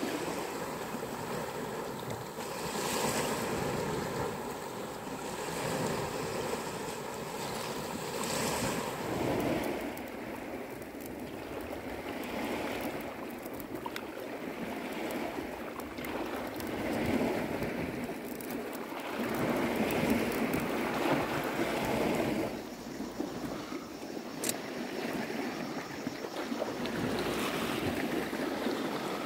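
Sea waves washing on a stony shore, swelling and easing every few seconds, with wind gusting on the microphone.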